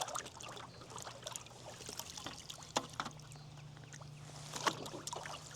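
Water lapping and dripping against a kayak hull, with scattered light knocks and ticks, over a faint steady low hum.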